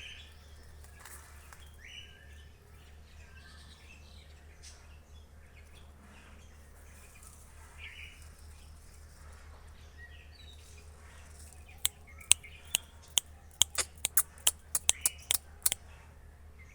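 Faint bird chirps with a steady low hum, then in the last few seconds a quick run of about fifteen sharp clicks or taps, louder than everything else.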